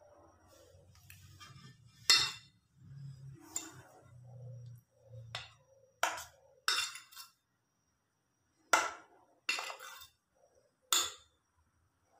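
A metal spoon clinking against a stainless-steel mixing bowl while it stirs and scoops thick fritter batter: about eight sharp clinks at uneven intervals.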